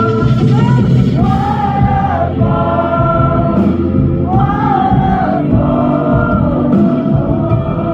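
Live pop ballad performance: female lead vocal over band accompaniment, with two long, wavering vocal phrases about a second and a half in and again about four and a half seconds in.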